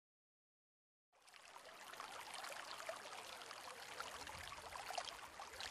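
Faint running water as a background sound effect, fading in after about a second of silence and then holding steady, full of small drop-like ticks.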